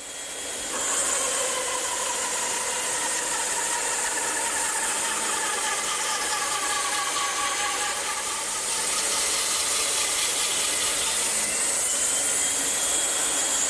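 Bandsaw with a 1-inch blade running and ripping through a thick board to cut a tenon cheek. Its tone sags a little while the blade is deep in the cut and rises back near the end.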